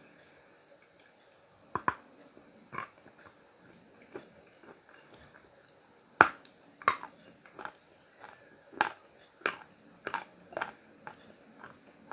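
Khrapovsky chalk being bitten and chewed close to the microphone: a run of sharp, crisp crunches at irregular intervals, starting a couple of seconds in, with the loudest bite about six seconds in.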